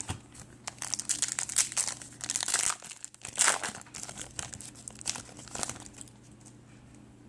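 Foil wrapper of a trading-card pack crinkling as it is handled, in bursts of crackling that die away about six seconds in.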